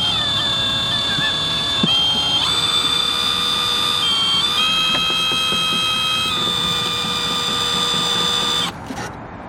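Low-powered electric drill spinning with a steady motor whine that steps down and up in pitch a few times as the trigger is eased and squeezed, then stops near the end.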